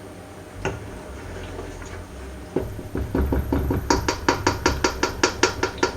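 Spoon knocking against a cooking pot in quick, regular strokes, about five a second, starting a little more than halfway through, as the stew is stirred.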